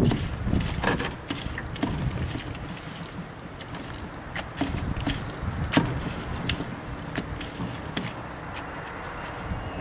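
Hands rubbing wet, silty pond mud through stacked metal sieve screens over a plastic bucket: an irregular scraping rustle with scattered sharp clicks and knocks from the mesh and rims.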